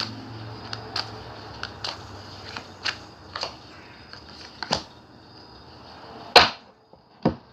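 A deck of tarot cards being shuffled by hand, with short sharp card snaps coming about every half second, then two louder snaps near the end.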